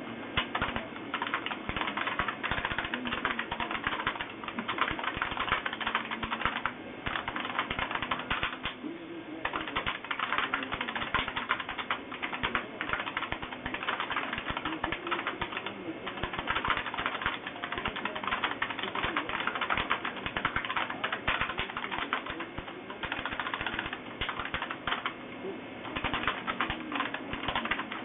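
IBM Model M keyboard with buckling-spring key switches being typed on fast, a loud continuous clatter of key clicks broken by a few short pauses.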